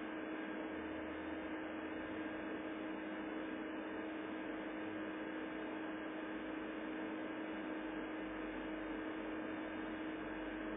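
Steady hiss with a constant low hum underneath.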